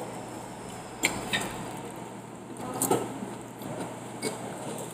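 A handful of light clinks of cutlery against a dish while eating, spaced about a second apart, over a steady low background noise.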